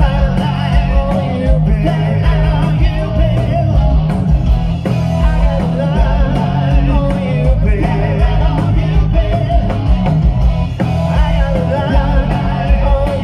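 Live rock band playing: electric guitar, bass guitar and drum kit, with a man singing lead.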